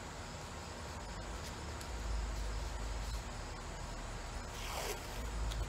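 Painter's tape pulled off its roll in one short ripping strip near the end, over a steady low rumble.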